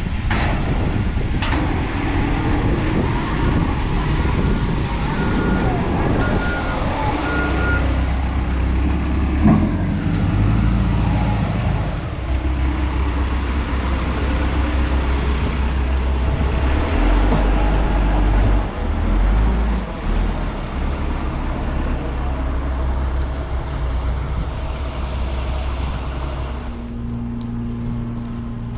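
A heavy diesel vehicle's engine running with a low rumble, while a reversing alarm beeps several times in the first quarter.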